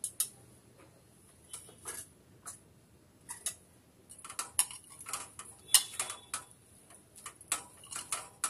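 Wheat-flour dough, mixed with coconut milk and ghee, being kneaded by hand in a bowl: irregular small sticky clicks and squelches, a few at first and coming much faster from about halfway.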